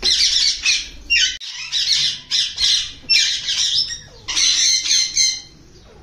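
Parrots squawking: a string of harsh, high screeching calls one after another with short gaps, with a longer call near the end.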